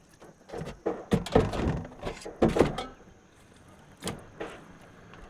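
Cookware and kitchen utensils being handled, making a run of sharp knocks and clatters that are loudest about one to three seconds in.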